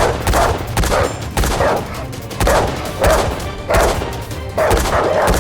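Gunfire, a string of sharp shots about two a second, each with a short echo.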